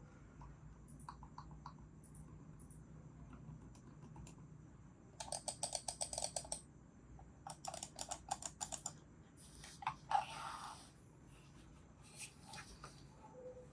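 A4TECH FM10S silent mouse buttons clicked rapidly in two runs of about a second and a half each, with a short scuffle and a few scattered ticks after them.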